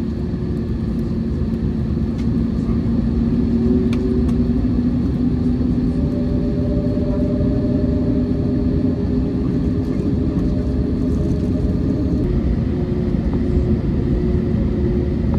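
Steady cabin rumble of an Airbus A321neo taxiing, with the jet engines' low hum running through it and a higher steady tone joining about six seconds in.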